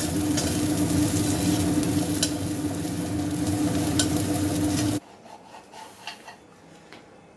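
Egg bhurji frying in a pan: steady sizzling while it is stirred, with a few sharp spatula taps and a steady low hum underneath. The sound cuts off abruptly about five seconds in, leaving only faint clicks.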